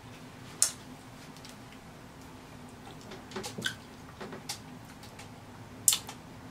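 Soft wet squishing and small ticks from a sauce-soaked lobster tail being handled and lifted, dripping, over a glass bowl of seafood-boil sauce. Two sharp clicks stand out, one just after the start and one near the end, over a faint steady hum.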